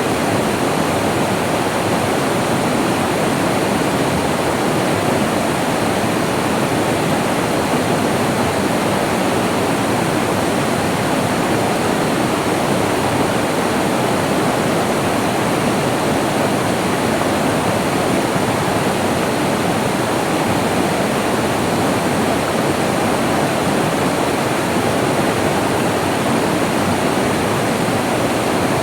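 Flowing water rushing in a steady, unbroken stream of sound.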